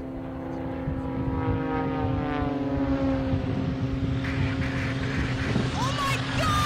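Propeller aircraft engine droning steadily, its pitch sliding down as the plane passes overhead. A few short whines come in near the end.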